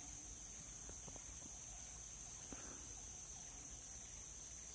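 Steady high-pitched drone of insects from the riverside vegetation, with a few faint ticks in the first half.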